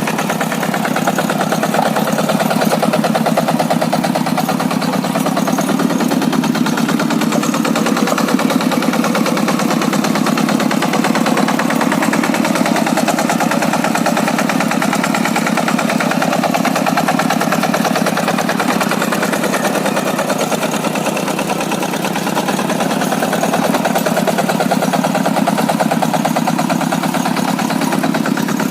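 Kubota single-cylinder diesel of a Quick G100 two-wheel hand tractor running steadily under load in a rice field, its fast pulsing beat swelling and easing a little as the machine works hard ground.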